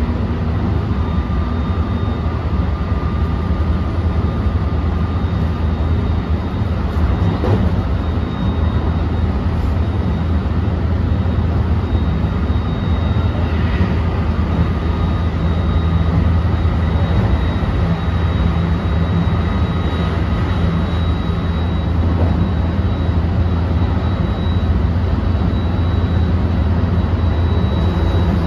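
Interior running sound of a JR West 223 series 2000-subseries motor car: a steady low rumble of wheels and bogies on the rails, with thin steady whines from the Hitachi IGBT VVVF inverter and traction motors.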